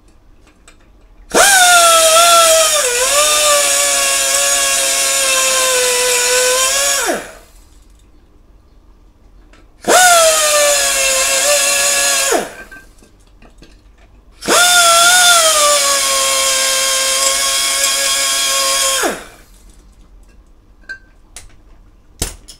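Pneumatic die grinder run three times for a few seconds each, clearancing the inside of a motorcycle crankcase half so the crankshaft no longer rubs. The high whine dips and settles lower just after each start and falls away as it winds down.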